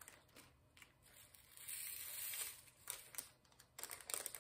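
Small plastic bags of diamond painting drills being handled: light crinkling and small clicks, with a soft rustle lasting about a second, starting about a second and a half in.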